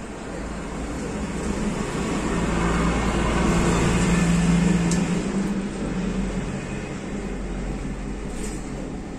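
A motor vehicle passing by: its engine noise swells to a peak about four to five seconds in, then fades away.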